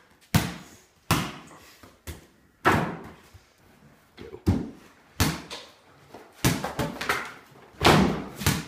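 A run of irregular thuds and slams, roughly one a second, each echoing briefly off bare concrete-block walls; the loudest comes near the end with a dunk on a plastic toy basketball hoop.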